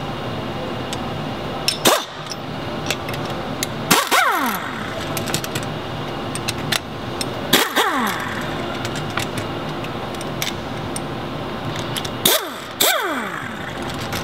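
Power driver backing out the bolts that join the two halves of a magnetic particle brake: three short runs, each starting with a sharp knock and ending with the motor's whine falling in pitch as it spins down, over steady background noise.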